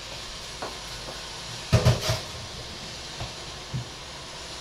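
A few knocks and clatters of kitchenware, the loudest a quick run of three or four knocks about two seconds in, over a steady hiss.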